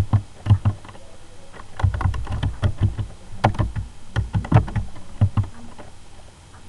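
Computer keyboard typing: keystrokes clatter in short irregular runs with brief pauses between them.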